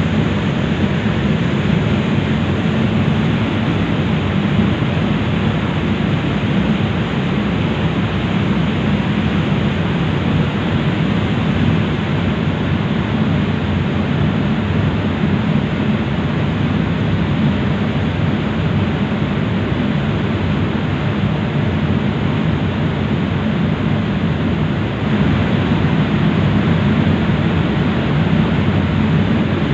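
Passenger ferry under way: a steady low drone from its engines mixed with a rushing noise of wind and water, a little louder from about 25 seconds in.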